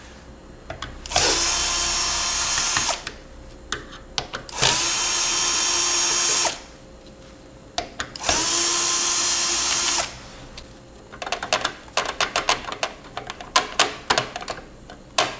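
Electric screwdriver running three times, about two seconds each, each run spinning up quickly to a steady whir as it backs out the CPU cooler's mounting screws. Then a quick string of light clicks and rattles of the cooler and screws being handled.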